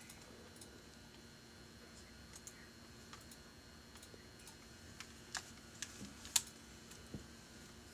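Faint scattered clicks at a computer workstation, a few louder ones from about five seconds in and the loudest near six and a half seconds. A faint steady equipment hum runs underneath.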